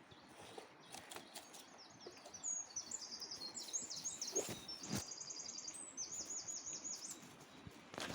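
A small songbird singing a run of quick, high trilled phrases for several seconds, starting a couple of seconds in, over a faint steady outdoor hiss. A few soft knocks sound around it.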